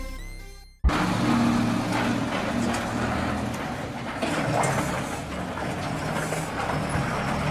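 Background music dying away, cut off about a second in by the steady running of a heavy diesel truck engine, with road noise and scattered rattles of a loaded dump truck on the move.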